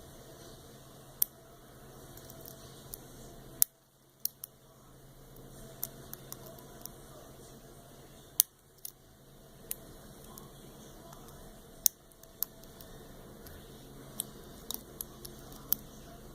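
Lock pick and tension wrench working the spool pins inside a Master Lock M930 padlock during single pin picking: sharp metallic clicks at irregular intervals, about a dozen, a few of them much louder than the rest.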